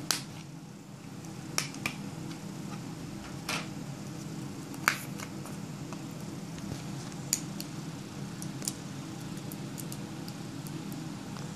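Samsung Galaxy S4's plastic back cover being pried off and its battery handled, to reset the phone after it died: scattered sharp plastic clicks and snaps, the loudest about five seconds in. A steady low hum runs underneath.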